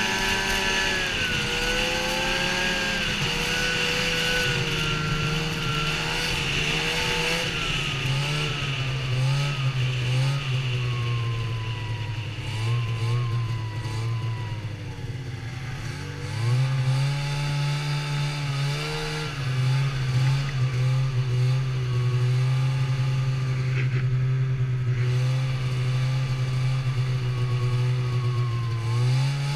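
Snowmobile engine running under way, its pitch stepping up and down with the throttle. It climbs sharply about halfway through and again near the end.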